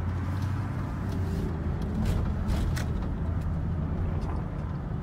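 Pickup truck driving slowly, heard from inside the cab: a steady low engine and road rumble with a few light clicks.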